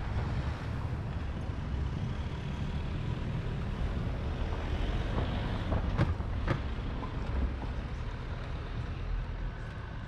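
Outdoor street ambience: a steady low rumble, with two sharp clicks about six seconds in.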